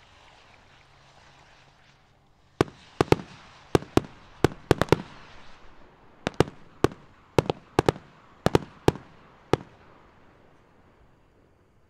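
Skyrockets from a mass launch bursting overhead: about eighteen sharp reports in quick, uneven succession, starting a couple of seconds in and stopping near the end, over a hiss that fades away.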